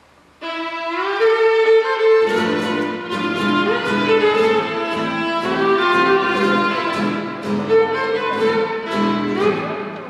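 A violin begins playing an introduction about half a second in, and a classical guitar joins with strummed chords about two seconds later.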